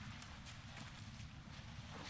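Soft, irregular crunching steps of a large animal walking on dry ground, over a steady low rumble. No trumpeting.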